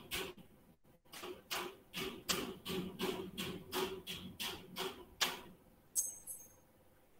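Rhythmic ticking, about three evenly spaced ticks a second, that stops a little after five seconds in.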